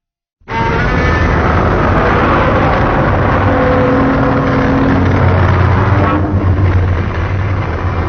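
Fan-made Shin Godzilla sound effect: a long, loud, rumbling noise with faint steady tones running through it. It starts suddenly about half a second in, and its upper part thins out a little after about six seconds.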